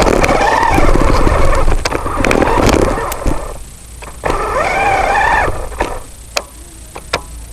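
Small RC rover driving in two bursts, its electric motor whining up and down in pitch amid rattling and sharp clicks.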